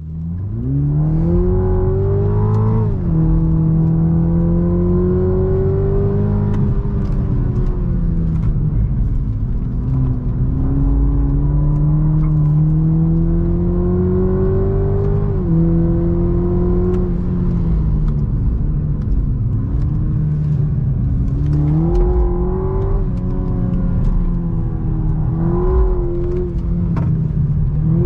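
2023 Toyota GR Supra's turbocharged 3.0-litre inline-six running under load while driving, its pitch climbing slowly and then dropping suddenly at upshifts about three seconds in and again around fifteen seconds in, with more uneven rises and dips in the second half.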